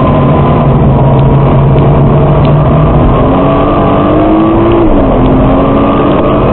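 Nissan GT-R R35's twin-turbo V6 heard from inside the cabin at speed, over road and wind noise. The engine note holds steady, then climbs under acceleration and drops sharply with an upshift about five seconds in, before climbing again.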